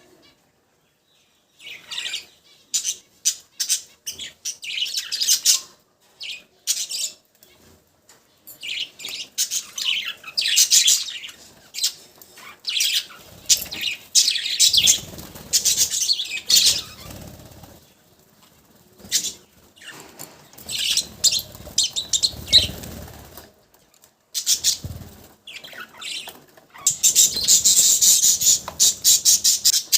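Pet budgerigars chirping and chattering in bursts of quick, high notes with short pauses between, building to a dense run of chirping near the end; stretches of low rustling noise come in the middle.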